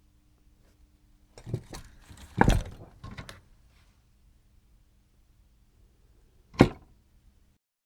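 Hand-handling noise at a workbench during an oscilloscope teardown: a short run of knocks and clatter, the loudest about two and a half seconds in, then one sharp knock near the end, over a faint steady hum.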